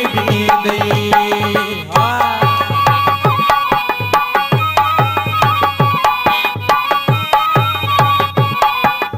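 Instrumental break in a Sindhi devotional folk song: a tabla-type hand drum plays a steady rhythm of bass strokes that bend down in pitch, under a held melody line.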